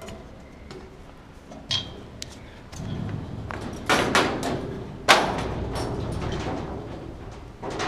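Hands and feet striking a metal stair railing and steel grating landing during parkour moves: a handful of sharp thuds and clanks, two close together about four seconds in and the loudest just after, over a low rumbling background.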